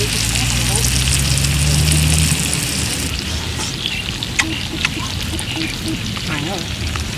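Food frying with a steady sizzle that thins out about three seconds in, followed by a few scattered light clicks. A low hum runs under the sizzle for the first two seconds or so.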